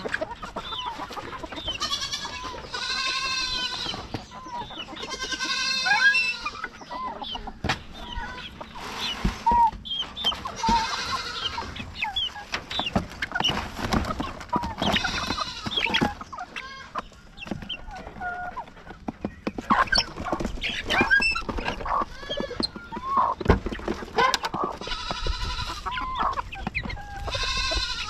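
Several chickens clucking and squawking in repeated drawn-out calls, with many short taps and knocks mixed in.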